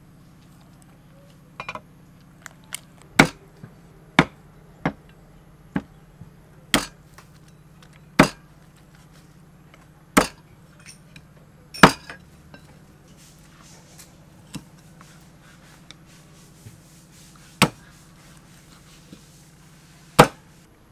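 Meat cleaver chopping a boiled whole chicken into pieces on a thick wooden chopping board: about ten sharp single chops at irregular intervals, with a pause of several seconds before the last two.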